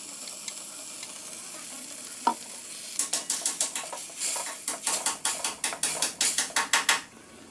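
Blended spice paste sizzling in oil in a stainless steel wok. From about three seconds in, a wooden spatula stirs and scrapes it around the pan in quick, uneven strokes for about four seconds. A single sharp knock with a short ring comes a little over two seconds in.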